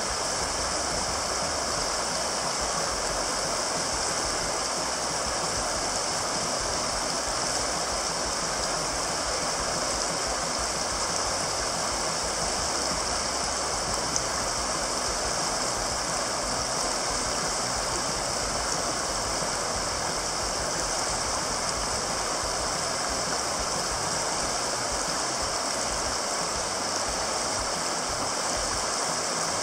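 River rapids rushing steadily: broad whitewater noise from water pouring over rocks.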